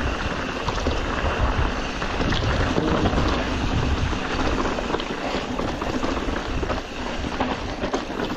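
Mountain bike riding on a dirt trail: wind rushing over the microphone with steady tyre noise and scattered rattles and clicks from the bike.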